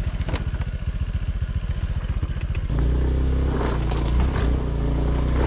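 Small motor scooter engine running at low revs with an even putter, then revved hard about two and a half seconds in and held at high revs as the underpowered scooter struggles up a steep rocky track. A few clattering knocks sound as it goes over the rocks.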